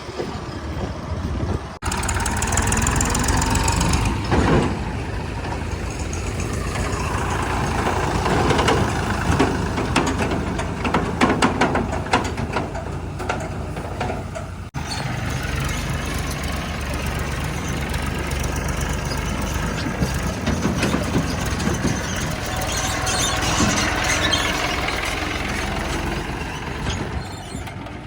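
Diesel engine of a backhoe loader working, rising and falling in revs, with bouts of clatter; the sound breaks off abruptly twice where the footage is cut.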